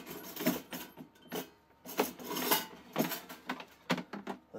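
Irregular clattering, knocking and scraping of hard plastic and metal, as a small metal baking pan is worked out of a plastic Easy-Bake Real Meal toy oven after it slid back inside.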